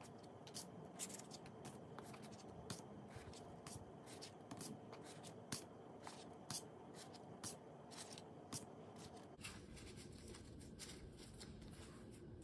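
Oracle cards being flipped through one at a time by hand: faint, irregular clicks and slides of stiff card stock, about two a second.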